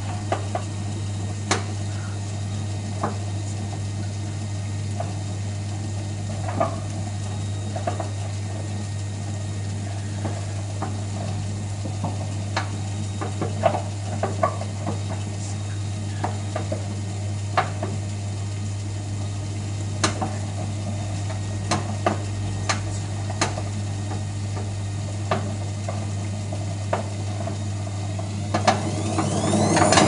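Hotpoint Aquarius WMF520P washing machine drum turning slowly through its wash, with a steady hum and irregular sharp clicks and clunks, the noise of a faulty drum spider, the arm the drum bearings attach to. Near the end the motor speeds up with a rising whine and the noise grows louder.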